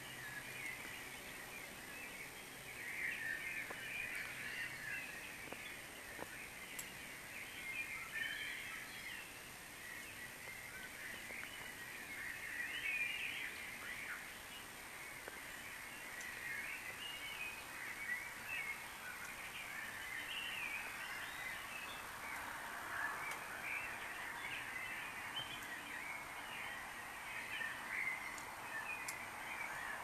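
Pre-dawn chorus of many birds singing at once: dense, overlapping chirps and warbling songs, with a lower song joining in the last third.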